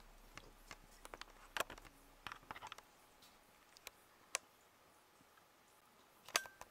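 Handling noise: a scattered run of light clicks and knocks, the sharpest about a second and a half in and another near the end.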